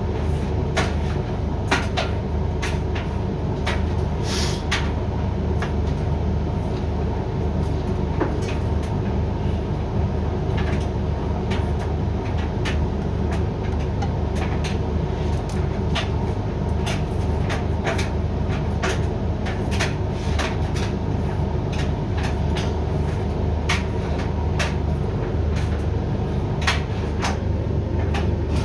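Hoover washer-dryer in the main drying stage of a synthetics programme: a steady hum from the drying fan and motor as the drum turns, with irregular light clicks and knocks throughout.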